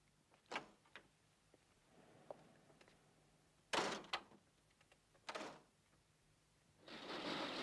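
A door being opened and shut, with faint clicks and two sharp knocks about four seconds in and another a second later; near the end a steady louder noise comes in.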